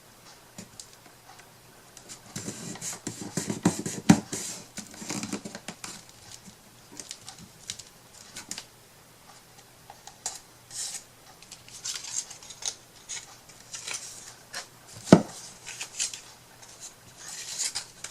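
Small craft tools and pieces being handled on a work table: scattered taps, clicks, rustles and scraping, with one sharp knock about three seconds before the end.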